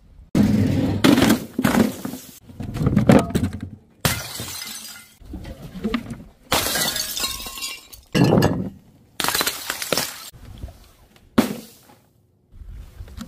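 A quick run of about eight separate crashes and smashes, each starting suddenly and cut short, as bottles and other objects dropped from a height break on paving tiles.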